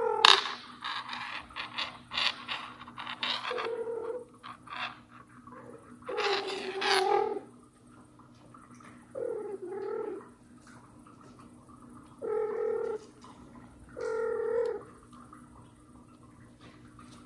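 Scratching and scrabbling at the start, then a cat meowing about five times in short separate calls, the voice of a mother cat trying to get at a kitten hidden under furniture.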